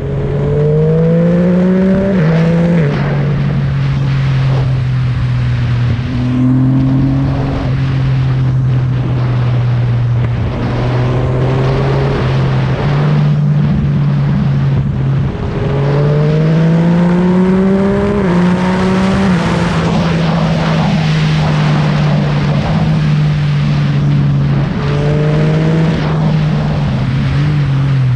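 Yamaha MT-09 motorcycle's three-cylinder engine through an aftermarket M4 exhaust, under way at a mostly steady pitch with two long rises in pitch under throttle, each ending in a quick drop at a gear change, over a steady rush of wind noise.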